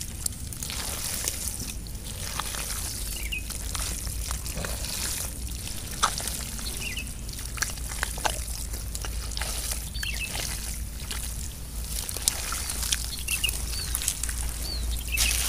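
Hands squelching and sloshing through wet mud and muddy water while digging out a hole to feel for eels, a steady run of small wet splats and gurgles.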